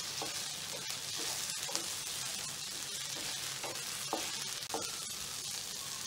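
Idli pieces and onions sizzling in oil in a frying pan as they are stirred with a wooden spatula, a steady frying hiss with a few light scrapes and knocks of the spatula against the pan.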